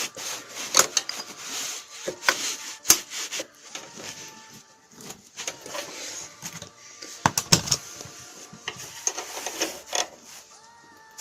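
A 13 mm spanner working a bolt on a rear wheel: irregular metallic clicks and knocks with scraping between them as the bolt is turned. The bolt had worked loose from vibration.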